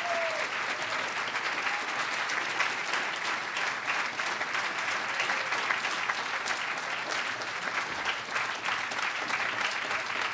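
Audience applauding: many hands clapping steadily, a dense patter that holds at an even level throughout.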